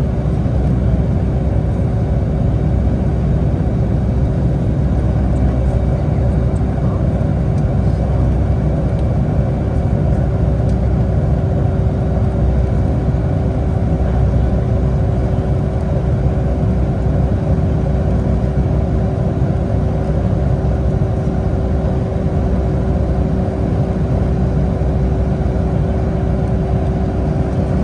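Steady cabin noise inside a Boeing 757: a deep, even rumble of engines and airflow with a steady mid-pitched hum running through it.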